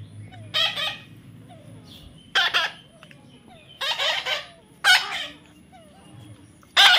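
Chicken squawking in about five short, loud, high-pitched calls a second or so apart.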